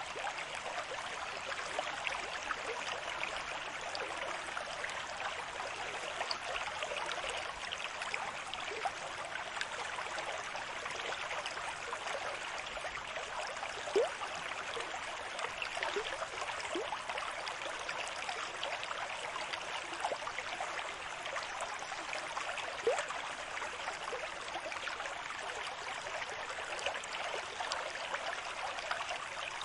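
Moving water with a steady, even rush and scattered small gurgles and drips, without the swell and fall of breaking waves.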